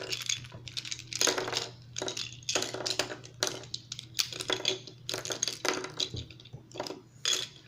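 Plastic Rubik's Cube pieces clicking and clattering as the cube is taken apart piece by piece: a quick, irregular run of small clicks and rattles.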